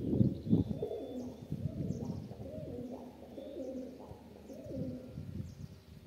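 Pigeons cooing, a series of low, soft coos, with a few faint high chirps above them. There is a brief low rustling noise at the very start.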